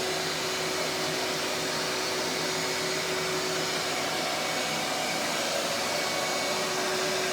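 A small motor with a fan running steadily: a constant whine over rushing air.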